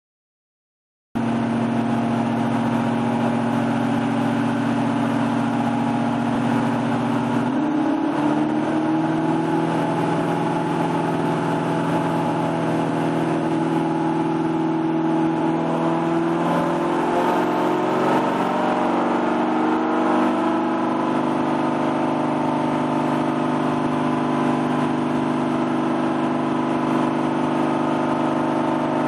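A 6.2-litre LS3 V8 with an aftermarket TSP 231/236 cam, in a C5 Corvette on a chassis dyno, running under load at a steady engine speed. About seven seconds in, its pitch steps up. It wavers for a few seconds in the middle, then settles steady again.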